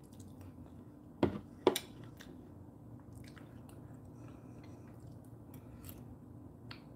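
A person eating soup from a spoon: quiet chewing and mouth sounds, with two short, sharp sounds about a second in, half a second apart.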